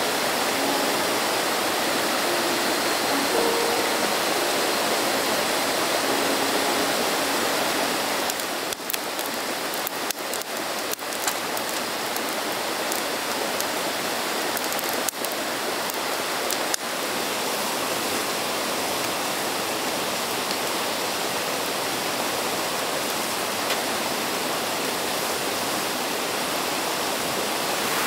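Steady rush of a flowing stream, with a few sharp light clicks around the middle.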